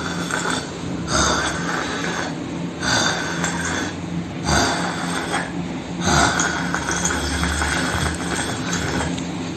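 A person snoring: long drawn snores, each a second or more, with short breaks between them.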